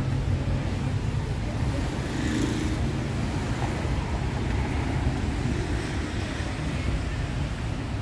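Steady outdoor street noise: a low rumble of passing road traffic mixed with wind buffeting the microphone.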